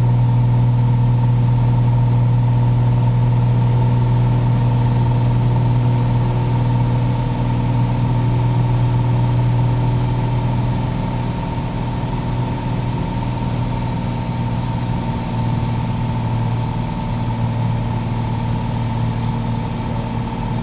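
Piper Saratoga's six-cylinder piston engine and propeller droning steadily in climb, heard inside the cabin as a strong low hum with fainter steady tones above it. It eases slightly quieter about halfway through.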